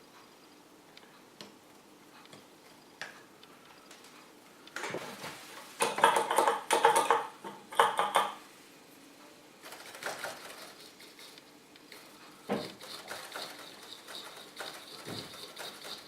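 Small metal tools and parts clattering and rattling on a workbench, loudest for a few seconds in the middle, with scattered clicks and knocks around it. A faint steady high tone comes in near the end.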